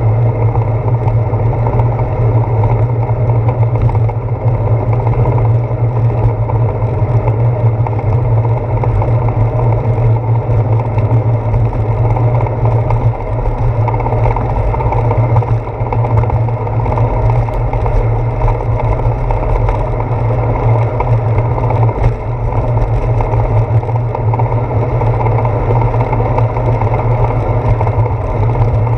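Steady low wind rumble and tyre noise from a bicycle riding on a wet paved path, picked up through a handlebar-mounted GoPro Hero 4.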